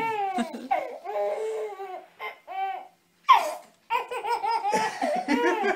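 Baby laughing in repeated high-pitched bursts, with a loud falling squeal about three seconds in after a brief pause.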